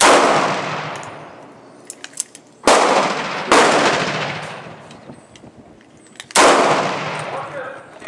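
Handgun shots: four single shots, the second and third under a second apart, each followed by a long fading echo.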